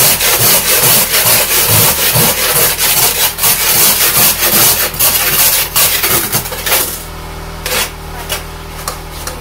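Ice scraper rasping ice off a car's side window in fast, rough strokes, with the car's engine idling underneath. About seven seconds in the scraping thins to a few separate strokes.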